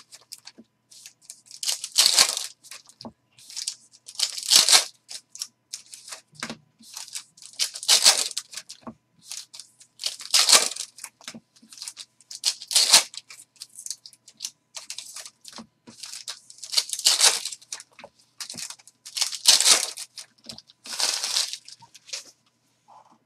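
Foil wrappers of Panini Revolution trading-card packs being torn open one after another. Each tear is a sharp rip, coming about every two to three seconds, with light crinkling of the foil between them.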